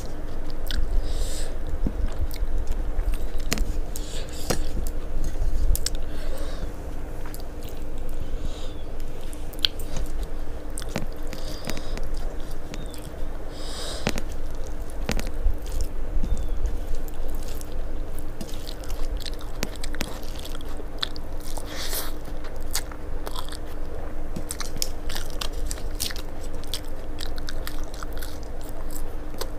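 Close-miked mouth sounds of a person eating a rice meal by hand: chewing, with many sharp crunches scattered through, over a steady faint hum.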